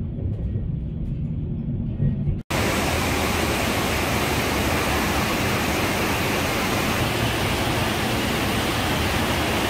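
Low, steady rumble of a train running, heard from inside the passenger car. About two and a half seconds in it cuts abruptly to the loud, steady rush of an Alpine river's rapids and small waterfall.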